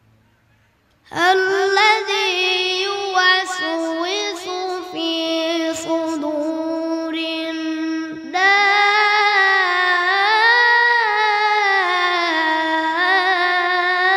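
A young boy's voice reciting the Quran in melodic tajweed style, drawing out long, ornamented held notes into a microphone. It starts about a second in, breaks off for a breath around the middle, and comes back in louder.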